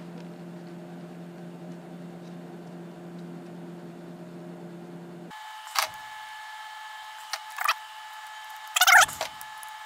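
A steady low hum that cuts off about five seconds in, then a few sharp plastic clicks and, near the end, a louder clatter of clicks as plastic trigger bar clamps are handled and ratcheted shut.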